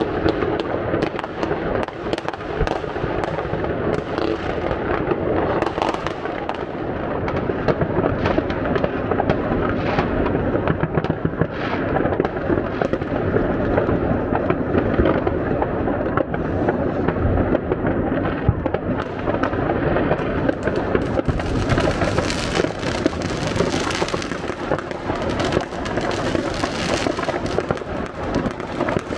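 Dense, continuous barrage of fireworks and firecrackers going off, with bangs and crackles overlapping without a break; the sharp, high crackling grows thicker about two-thirds of the way through.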